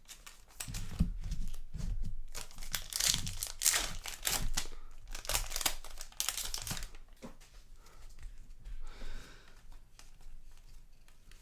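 A trading-card pack's wrapper being torn open and crinkled, with the cards rustling as they are handled; the crinkling is densest in the first several seconds and fainter near the end.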